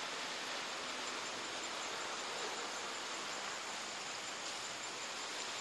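Steady outdoor background hiss with no distinct events.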